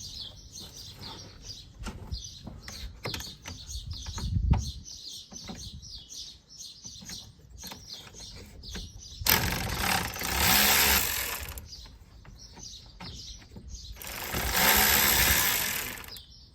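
A cordless power tool runs in two bursts of about two seconds each, backing out one of the radiator's Torx mounting bolts. Birds chirp throughout.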